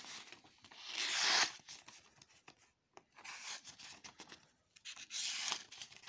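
Folding knife blade slicing through a sheet of lined notepaper, a papery hiss on each of about three strokes, the first, about a second in, the loudest. The blade cuts the paper cleanly, a sign that the edge is sharp out of the box.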